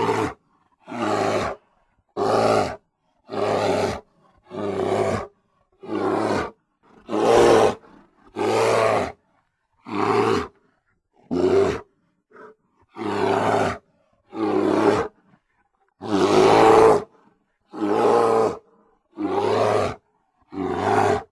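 Grizzly bear roar sound effect: a string of about fifteen short roars and growls, each lasting under a second, separated by dead silence.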